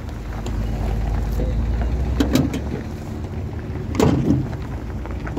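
A car's hood release and latch being worked: a couple of sharp clicks a little past two seconds in and a louder clunk about four seconds in, over a steady low rumble.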